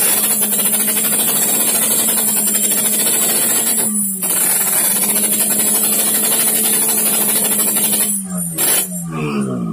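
Yamaha RX-King 135 cc two-stroke single-cylinder engine running at steady high revs through its exhaust, with the crisp, dry two-stroke note. The revs dip briefly about four seconds in, then fall away in a few drops near the end.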